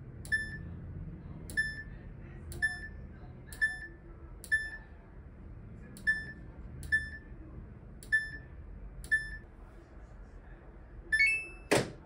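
Front-loading washing machine's program dial being turned step by step, the panel giving a short electronic beep at each step, about nine beeps roughly a second apart. Near the end comes a higher two-note beep, followed by a sharp click as a touch button on the panel is pressed.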